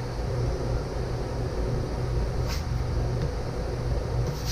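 Steady low machine hum with a soft, even hiss over it, and a brief faint hiss about halfway through.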